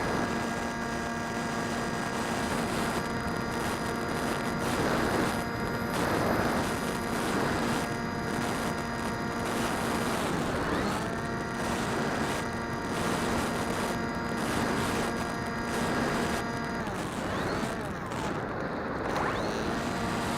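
DJI Phantom quadcopter's motors and propellers whining steadily, heard from a camera mounted on the drone, under rushing wind noise. The whine shifts pitch as the throttle changes, about halfway through and again near the end.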